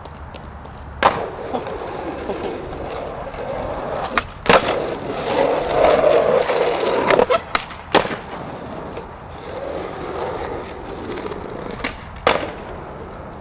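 Skateboard wheels rolling on asphalt, broken by sharp clacks of the board smacking the ground as tricks are popped and landed. There is one clack about a second in, another around four and a half seconds, a quick cluster around seven to eight seconds, and one more near the end.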